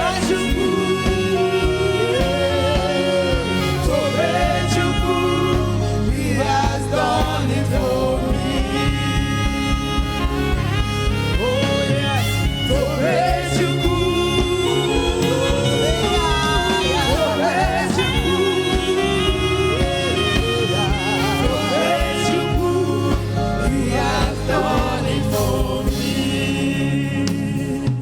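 Gospel praise and worship music: singing over a steady band accompaniment with bass and keyboard.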